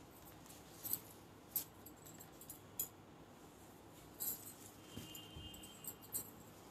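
A quiet pause with a few faint, short clicks and light rustles scattered through it, and a faint thin high tone briefly about five seconds in.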